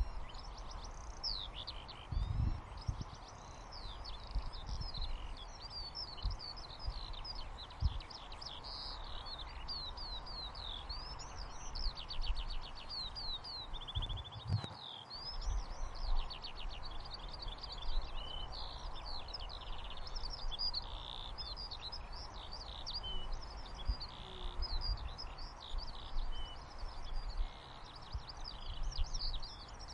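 A chorus of small birds chirping and twittering in quick rising and falling calls, over a steady soft hiss of white noise, with a few brief low thumps.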